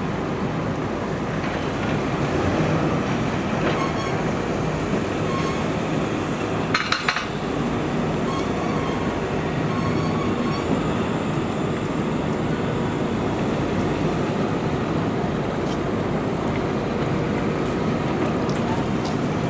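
Train running, a steady rumble of wheels and motors, with a short burst of clicks about seven seconds in.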